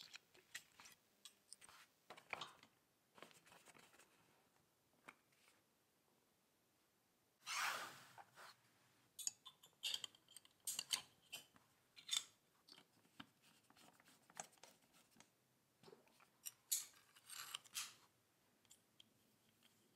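Faint, scattered clicks and short scrapes of small metal parts being handled, with a louder scraping sound about eight seconds in and again near the end.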